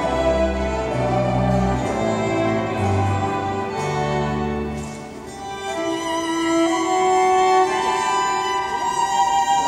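Chamber string orchestra with harpsichord playing: violins over a low cello and double-bass line for about five seconds, a brief softer moment, then higher held notes.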